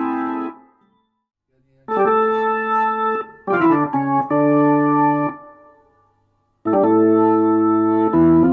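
1976 WLM Trip organ, a Finnish Hammond clone, played through an Allsound Leslie speaker: held chords that cut off sharply. There are short silent gaps between the chords, one about a second in and another around six seconds.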